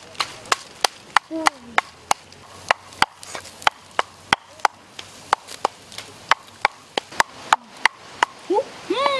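Wooden pestle pounding dried chillies and garlic in a mortar: sharp, evenly spaced knocks, about three a second.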